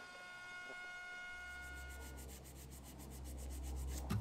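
Faint hand sanding on wood: quick, even rubbing strokes begin about two seconds in, over a low hum.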